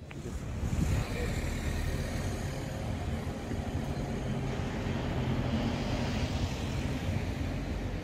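Steady low rumble of motor traffic, swelling over the first second and then holding steady.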